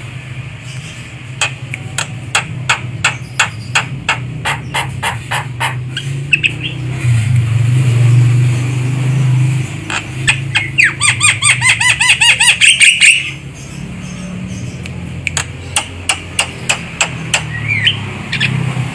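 Javan myna (jalak kebo) calling: runs of sharp clicks, about three or four a second. Around the middle comes a fast two-second burst of squealing notes. A steady low hum runs underneath.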